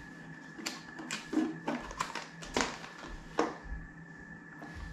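Light clicks and taps of hard plastic as the contents of an open hard plastic case are handled: about six short knocks within three seconds, then a quieter stretch.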